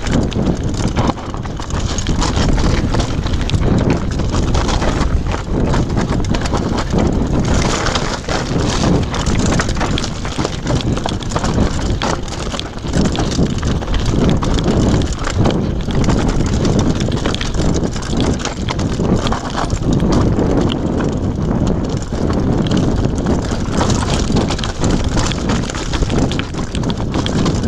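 Downhill mountain bike riding fast over a loose rocky trail: a continuous clatter of tyres on stones and the bike rattling over the bumps.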